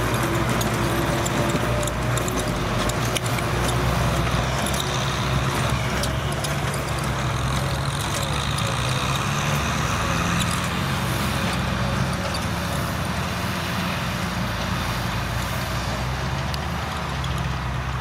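Kubota M6040SU tractor's diesel engine running steadily under load as its rear rotary tiller churns dry soil, with scattered small clicks and rattles over the engine.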